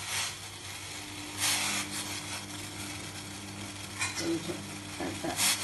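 Water at a rolling boil in a stainless steel bowl over a gas burner, with tamarind soaking in it: a steady bubbling hiss with a few louder surges, and a low steady hum underneath from about a second in.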